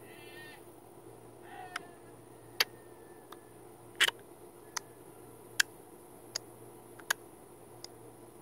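Two short animal calls in the first two seconds, the first one wavering quickly in pitch. They are followed by a regular series of sharp clicks, about one every three-quarters of a second, over a faint steady hum.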